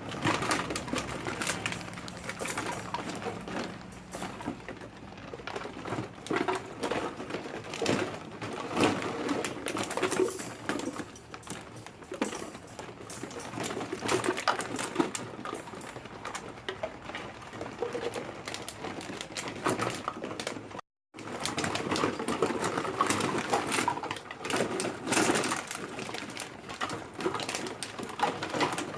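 A litter of puppies grunting and squeaking in a constant jumble of small cooing murmurs and rapid clicks, cut off briefly about three quarters of the way through.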